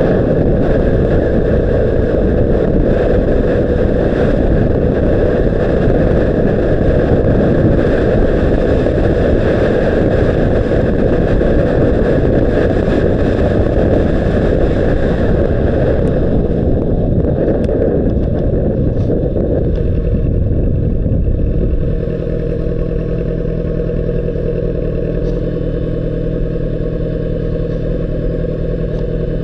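Honda CBR600RR's inline-four engine running, loud and rough with much noise mixed in. About two-thirds of the way through it drops a little and settles into a steadier, even engine note.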